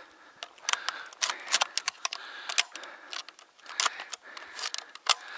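Irregular sharp clicks and rustles, several a second, from a person walking over rough dry ground with a shotgun and gear.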